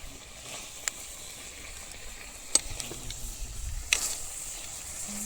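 Goat stomach and liver frying in a pan, a steady sizzle, with three sharp clicks about a second apart.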